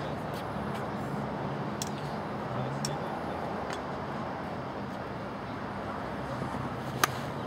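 Steady outdoor hum like traffic at a golf driving range, with a few faint sharp clicks of golf balls being struck and one sharper club-on-ball crack about seven seconds in.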